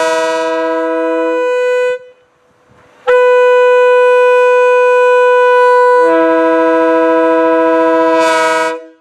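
Multi-chime railroad air horn blown in two long blasts. The first ends about two seconds in, some chimes dropping out just before the air is cut. After a one-second pause the second blast starts on a single chime, and the other chimes join about three seconds later, sounding the full chord until it stops near the end.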